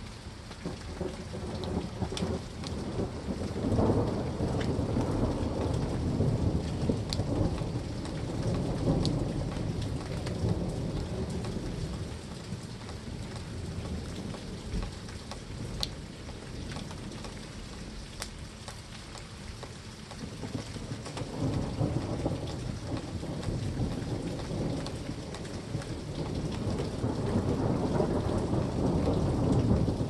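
Steady rain with long low rolls of thunder, one swelling over the first ten seconds or so and another over the last ten, quieter in between. Scattered sharp ticks of drops sound over the rain.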